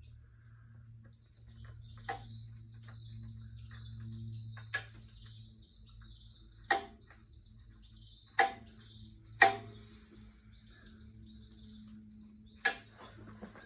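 Workshop handling noises: about six sharp, irregularly spaced clicks and knocks, the loudest about two thirds of the way in, over a faint steady low hum.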